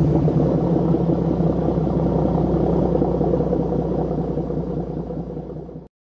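Brabus-tuned Mercedes-AMG GLE twin-turbo V8 idling just after a cold start, a steady deep exhaust note. It gradually gets quieter and then cuts off suddenly near the end.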